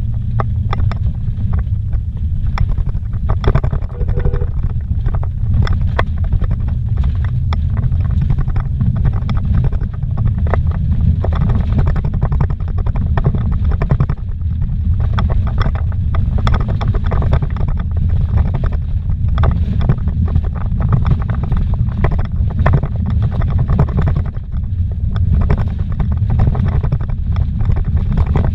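Car driving over a bumpy dirt road, heard from inside the cabin: a steady low rumble of tyres and suspension, with frequent knocks and rattles from the rough surface.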